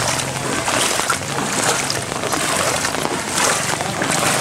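Steady rain falling on a flooded street, drops pattering onto standing floodwater, with some splashing of the water.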